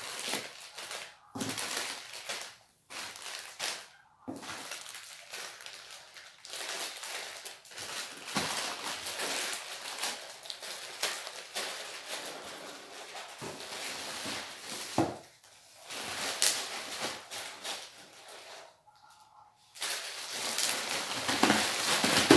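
Plastic instant-noodle packets crinkling and rustling as they are handled, in irregular crackles with a few short pauses and some sharp clicks.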